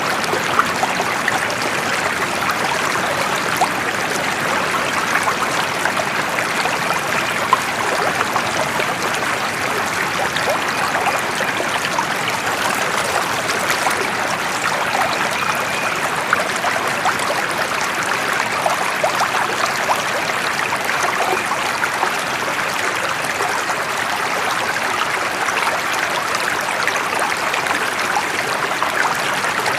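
Running water flowing steadily, an even rushing sound with no break or change.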